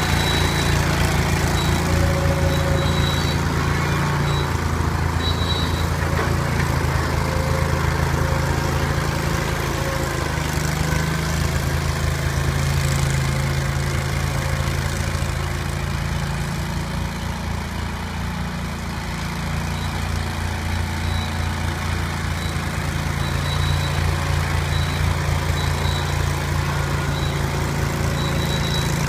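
Gehl 3000 skid steer loader's engine running steadily while it works a homemade drum roller over shale, its level easing slightly around the middle and rising again. Short high squeaks come now and then.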